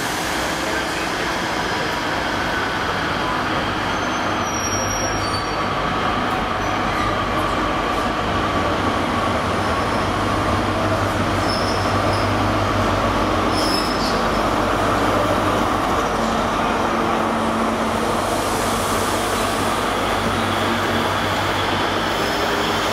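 Class 43 HST diesel power car running into the platform, its engine hum and the train's rolling noise steady and loud, with a few brief high brake squeals as the coaches draw past.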